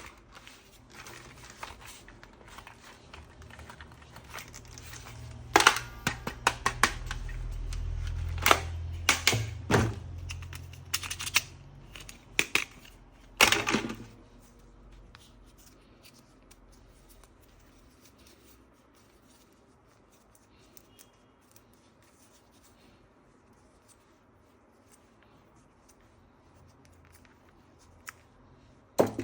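Sharp clicks and knocks of objects being handled, several in quick succession, over a low hum that swells and then fades; then quiet apart from one more sharp click near the end.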